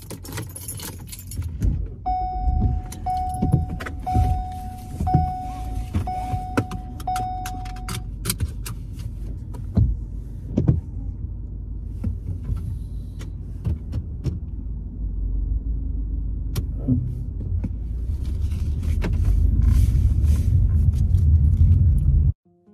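Inside a car: a warning chime beeps six times, about once a second, over clicks and handling knocks. Then the low engine and road rumble builds as the car drives, cut off abruptly just before the end.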